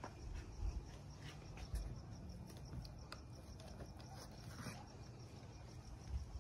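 Faint crickets chirping in a steady, evenly repeating high pulse, with a few low thumps from the handheld phone being moved.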